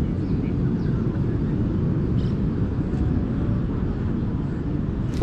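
Steady low rumble of wind buffeting a body-mounted camera's microphone, with one sharp knock right at the end.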